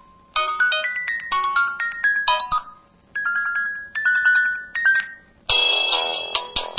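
MS350 mobile phone playing ringtone melodies through its speaker: a bright synthesized chime tune of quick single notes in short phrases with brief pauses. About five and a half seconds in, a louder, fuller ringtone starts.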